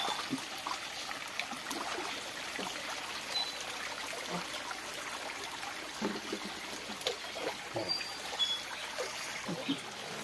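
Shallow stream water trickling and sloshing, with scattered small splashes as people wade in it and lift a scoop net through it.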